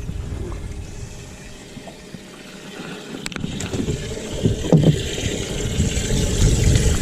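Wind and water noise around a small fishing boat, dipping quieter briefly and then swelling again in the second half, with a couple of light knocks.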